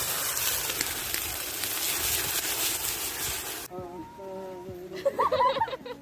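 Burgers sizzling on a grill over a campfire: a loud, even hiss with faint crackles that cuts off suddenly about three and a half seconds in. A voice with held, then wavering pitch follows near the end.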